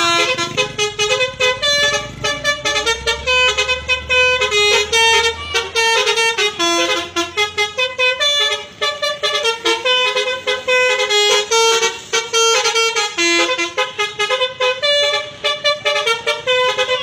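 Bus telolet horn, a multi-tone musical horn, playing a quick melody of short stepped notes, one after another. A low rumble lies under the first six seconds or so.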